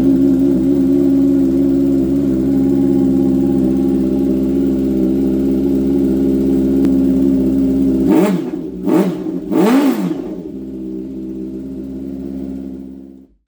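Honda CBR650R inline-four running through an Arrow Pro-Race exhaust: a steady idle, then three quick throttle blips about eight to ten seconds in, each rising and falling in pitch, before it settles back to a quieter idle. The sound cuts off abruptly near the end.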